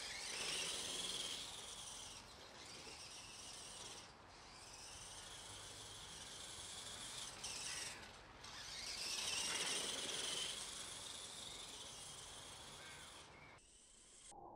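Tamiya Wild Dagger RC truck's twin 27-turn silver-can electric motors and gearboxes whining, the pitch rising and falling several times as it speeds up and slows on the grass.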